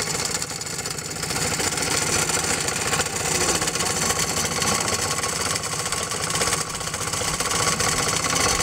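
Wilesco toy steam engine running fast under steam, its exhaust beating in a rapid, even rhythm over a steady hiss.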